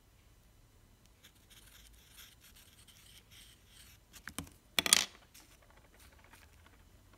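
Faint scratching of a fine-tip pen writing a signature on a tiny textured canvas. About four seconds in come a few clicks, then a brief, louder scrape just before the five-second mark.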